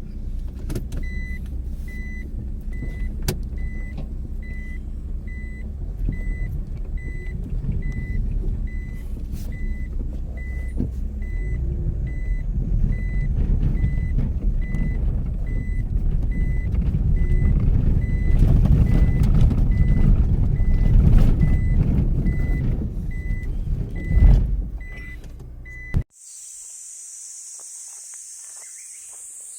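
Mitsubishi Pajero Mini driving over a rough road, its low rumble growing louder, with a warning chime beeping about twice a second throughout and a jolt just after 24 seconds. Near the end the sound cuts suddenly to a steady high hiss.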